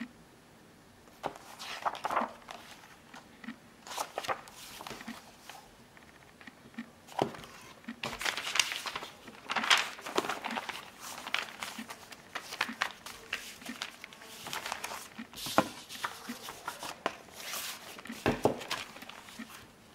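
Paper rustling and pages turning as a printed booklet and a folded sheet of thin paper are handled and leafed through, in irregular bursts with a few soft knocks.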